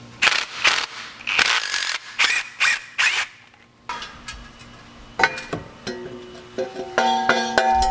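Cordless power tool run in about six short bursts over the first three seconds, backing the leftover exhaust-manifold studs out of the cylinder head by their 5 mm hex ends. From about five seconds in, plucked-string background music begins and grows louder.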